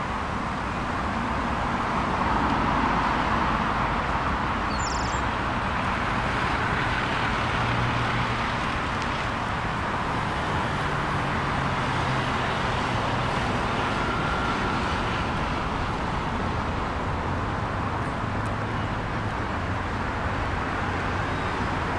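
Steady traffic on a multi-lane city avenue: a continuous wash of car tyres and engines, with the hum of individual vehicles rising and fading now and then.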